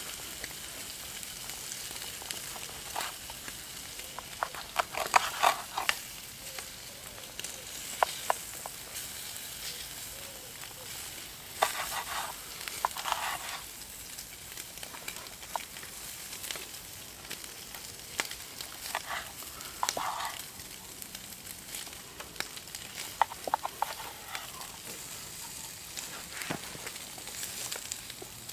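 Bacon sizzling steadily in a frying pan over a campfire. About six short bouts of a knife sawing through a crusty loaf, with the blade clicking against the wooden board, stand out above it.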